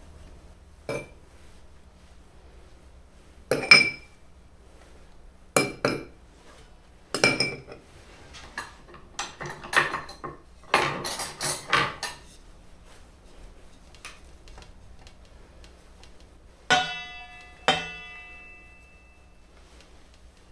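Knocks and clinks of a wooden spatula and utensils against a brass tray of steamed rice cakes: a few single hits, a busy spell of handling in the middle, then two strikes near the end that ring on.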